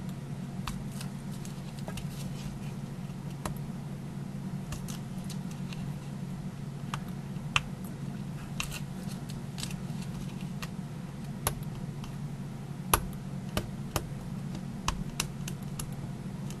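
Fingernails picking at and peeling the backing off small adhesive squares on cardstock: scattered light clicks and brief crinkles, over a steady low hum.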